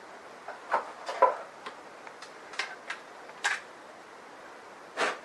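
Scattered light clicks and knocks of a rifle's barrelled action and stock being handled and turned over, about eight in five seconds, the loudest near the end.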